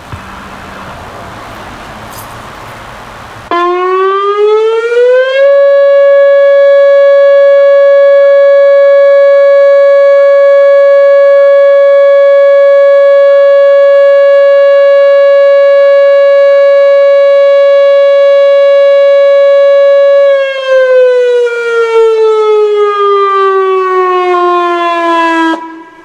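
Whelen WPS 2902 electronic outdoor warning siren sounding its steady alert signal. The tone comes in suddenly a few seconds in, rises briefly, holds at one steady pitch for about fifteen seconds, then slides down in pitch and stops just before the end.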